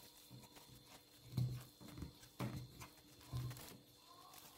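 A wooden spoon and a hand working a soft flour-and-water dough in a glass bowl, giving soft thuds and squelches about once a second.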